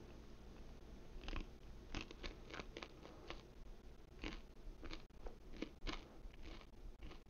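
A person chewing frozen pizza: soft, irregular crunches and mouth clicks.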